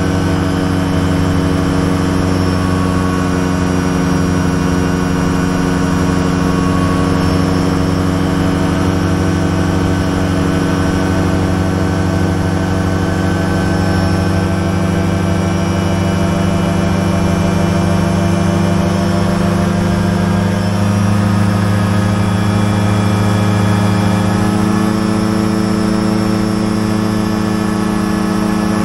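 Light aircraft's engine and propeller droning steadily, heard from inside the cockpit with wind noise over it. The engine note rises slightly about two-thirds of the way in.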